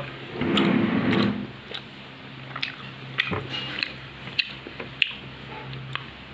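Close-up sounds of a person eating soft paratha and soybean curry with the fingers: wet squishes, chewing and many short mouth clicks and smacks. About half a second in there is a louder muffled low sound lasting about a second.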